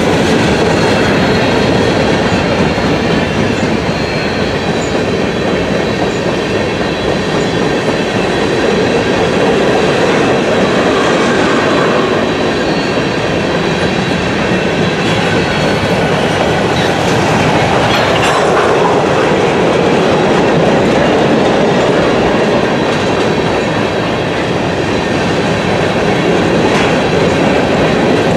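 Freight cars of a long mixed freight train rolling past close by: a steady, loud rumble and clatter of steel wheels over the rails, with a faint steady high squeal on top.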